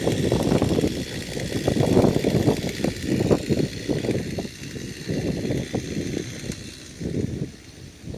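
Gusty wind buffeting the microphone, a rumble that swells and drops irregularly, with a faint steady hiss of wind through trees.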